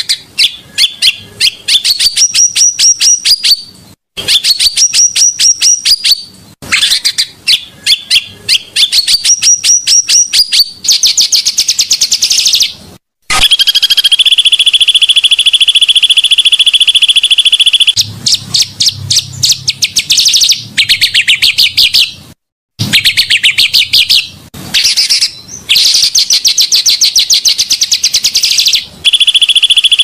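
Bird song from a pancawarna masteran recording: runs of rapid, sharp chirps and rolling trills, broken by short pauses. A few seconds in the middle and again near the end, a steady, very fast buzzing trill takes over.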